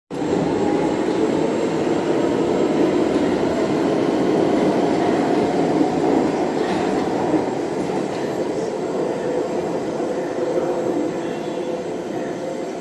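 Steady rumble and hum of a light-rail train, easing slightly over the last few seconds.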